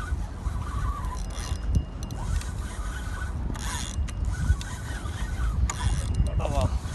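Spinning fishing reel being worked, a repeated mechanical ratcheting, while a fish is played on the line. Wind buffets the microphone with a steady low rumble.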